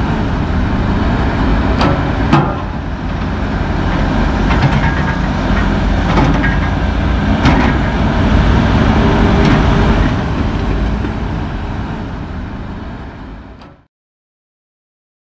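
Heavy diesel engines running as a logging truck pulls away with its empty trailer, with several metallic clanks from the trailer. A tracked log loader sits running beside it. The sound grows quieter and cuts off near the end.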